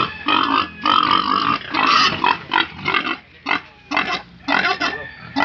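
Pigs in a pen calling in a quick series of short, loud cries, about two a second.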